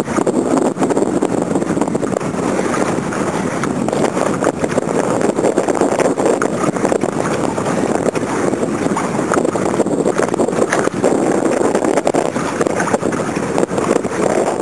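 A steady rush of wind on the microphone over choppy lake water splashing and crackling, with no engine note.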